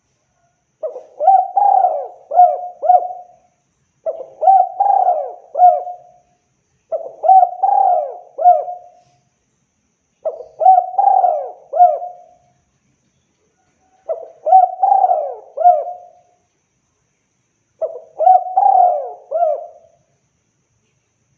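Spotted dove (tekukur) cooing: six repeated call phrases, each a run of several short coos lasting about two seconds, coming every three to four seconds with silence between.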